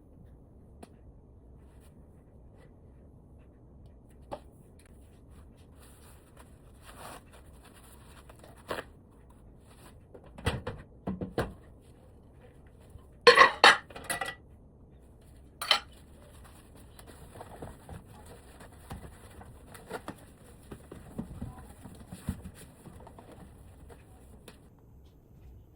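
Scattered knocks, clinks and clatter of kitchen items being handled. The loudest is a quick burst of clatter about halfway through, followed shortly by a single sharp knock.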